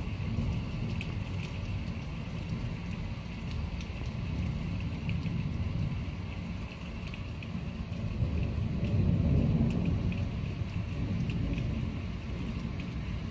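Thunderstorm rain with scattered drip ticks over a low, continuous thunder rumble that swells about eight seconds in.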